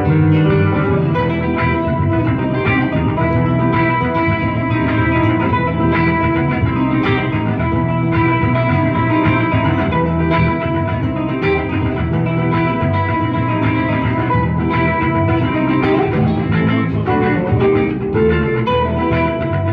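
A live guitar trio plays an instrumental piece, an electric guitar and an amplified acoustic guitar among them. Long held notes ring over steady plucked picking.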